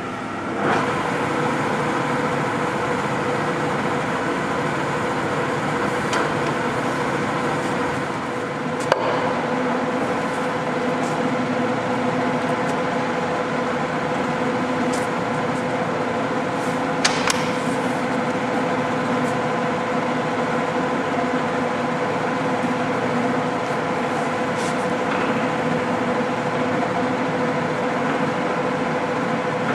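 American Pacemaker engine lathe running under power, its 10-horsepower drive and headstock gearing giving a steady mechanical hum with a constant tone. About 9 s in there is a click and the running sound takes on a lower note, as a speed or feed is engaged, and near the middle there are a couple of sharp metallic clicks.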